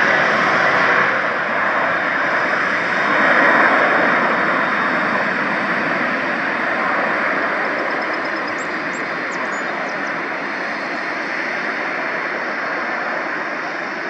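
Fixed-wing aircraft's engines, loud at first and then slowly fading as the aircraft moves away.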